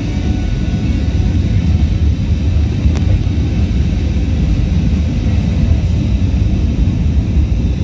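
Steady low rumble of engine and airflow noise inside an Airbus A320's cabin in flight.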